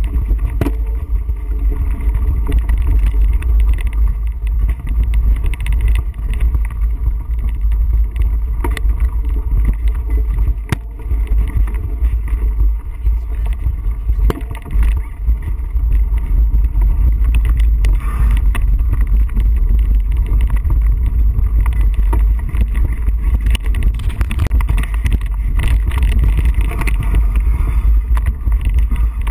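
Wind and ride rumble buffeting the microphone of a camera mounted on a mountain bike riding a rocky dirt trail, with frequent rattles and knocks from the bike over the rough ground.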